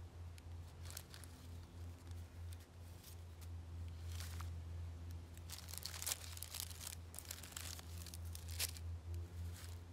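Rustling and crinkling of a cloth bag and its lining as it is opened and small wrapped bundles are pulled out, in irregular bursts that get busier about halfway through, over a steady low hum.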